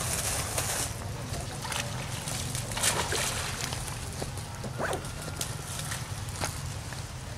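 Pond water splashing and sloshing as macaques swim and play in it, with a few short, sharper splashes about three and five seconds in, over a steady low rumble.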